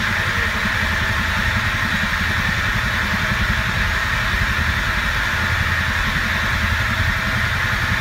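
Industrial gas burner running lean, with far too much combustion air and not enough fuel: a loud, steady rush with a fluttering low rumble beneath it. The noise is a sign of lean, unstable combustion.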